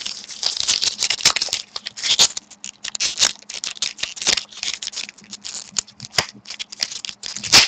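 Foil wrapper of a hockey card pack crinkling and rustling in the hands as it is handled and torn at, a quick irregular run of crackles and scrapes, with a faint steady hum underneath.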